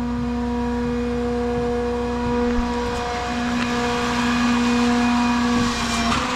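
Vehicle engine running with a steady hum, growing a little louder and rougher about four seconds in and easing off near the end.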